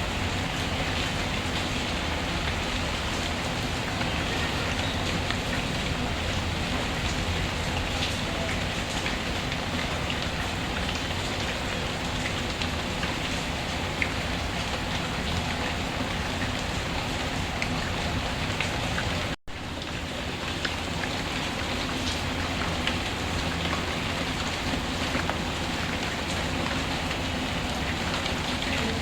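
Steady rainfall mixed with the scattered crackle of a wood fire, forming an even hiss with occasional sharp ticks. About two-thirds of the way in the sound cuts out for a split second, then carries on.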